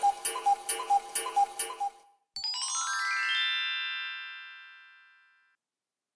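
Edited-in clock-ticking sound effect, a pitched tick about four times a second, stopping about two seconds in. Then comes a rising, chime-like synthesized sweep that holds and fades away.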